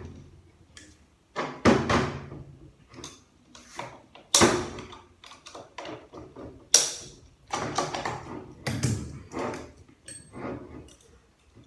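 Metal transmission parts knocking and clattering as they are handled and set down on the bench: a string of sharp knocks of varying loudness, a second or two apart.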